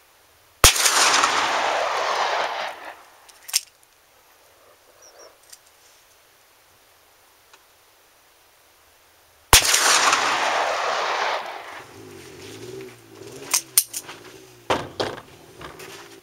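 Two shots from a Taurus Raging Bull .44 Magnum revolver firing Magtech 240-grain semi-jacketed soft points, about nine seconds apart, each followed by about two seconds of rolling echo. A few sharp clicks follow near the end.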